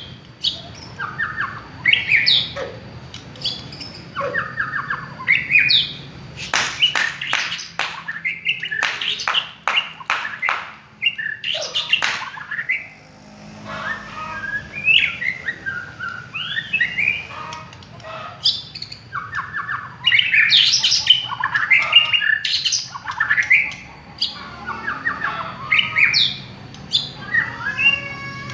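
White-rumped shama singing a varied song of loud whistled phrases, some gliding up or down, mixed with harsh clicking notes that come in a quick run from about 7 to 12 seconds in.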